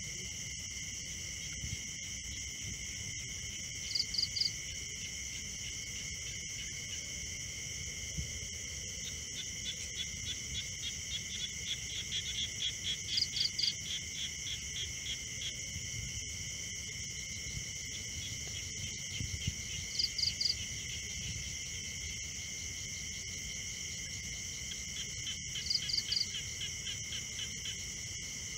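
Chorus of insects, crickets, a steady layered high-pitched shrill. A short triple chirp recurs about every six to seven seconds, and a rapid pulsing trill swells up in the middle and again near the end.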